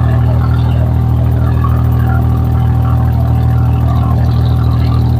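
Abra water taxi's inboard diesel engine running steadily under way, a loud, even low hum that does not change pitch, with scattered splashes of water along the hull.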